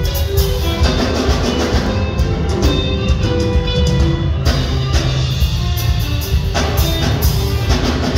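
A live band playing an upbeat instrumental: electric guitars pick melodic lines over a drum kit keeping a steady beat.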